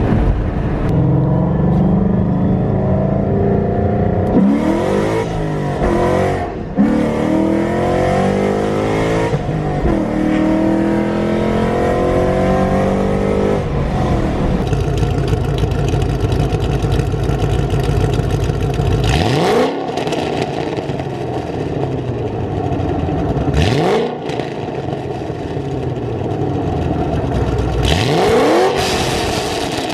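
Ford Mustang GT V8 with long-tube headers, off-road X-pipe and Corsa Extreme exhaust, running loud. In the first half it accelerates hard through several rising pulls, and in the second half it is revved sharply three times, about four seconds apart.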